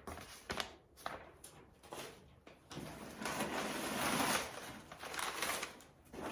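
Packaging being handled during an unboxing: light taps and knocks at first, then a few seconds of continuous crinkling and rustling.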